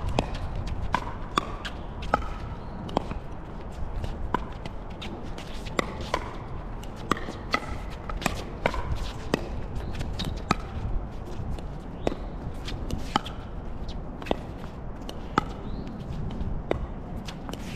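Pickleball being played: sharp pops of paddles striking the plastic ball and the ball bouncing on the hard court, coming at irregular intervals, over a low rumble of wind on the microphone.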